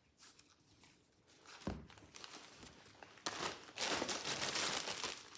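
Plastic mailer and poly packaging bags crinkling as they are handled and pulled apart. The crinkling is faint at first, with a thump just under two seconds in, then grows louder and continuous from a little past three seconds.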